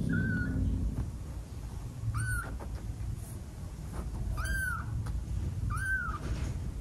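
Newborn kitten mewing: three short, high-pitched cries, each rising and falling, about two, four and a half and six seconds in, with a fainter one at the very start.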